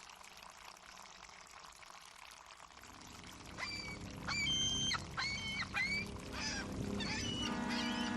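Harbour water sloshing steadily, then seagulls calling in a quick series of about seven loud, yelping cries starting about three and a half seconds in. Near the end a steady, low horn begins to sound.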